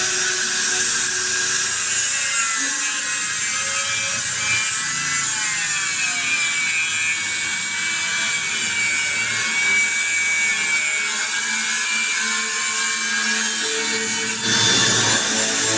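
High-speed power tool running steadily on metal with a high whine, its sound changing abruptly and getting a little louder near the end.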